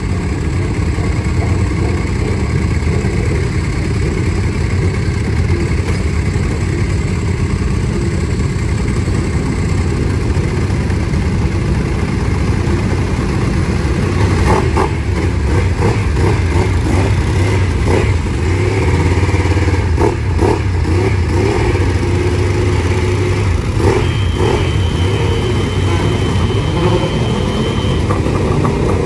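Ducati 998 RS superbike's 998 cc V-twin engine running at idle, with several short throttle blips in the second half.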